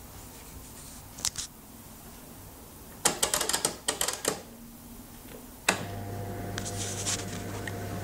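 Miele EuroStar SC dishwasher being started: a few clicks, then a quick run of clattering clicks, and a sharp click about two thirds in as the machine switches on and a steady low hum of its pump starts up for the prewash.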